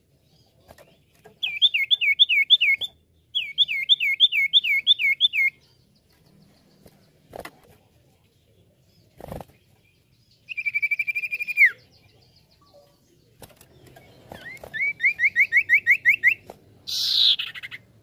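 Common iora singing: two runs of quick looping whistled notes, then a long held whistle that drops at its end, a run of quick rising notes, and a harsh rasping note near the end. Two knocks fall in the quiet stretch between the phrases.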